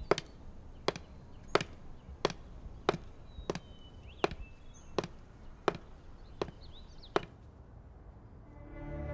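Footsteps of hard-soled shoes clicking on a hard floor, about one step every two-thirds of a second, stopping about seven seconds in. Music starts to swell near the end.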